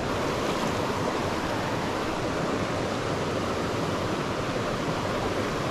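A shallow stream rushing over rocks in a riffle: a steady, unbroken rush of water.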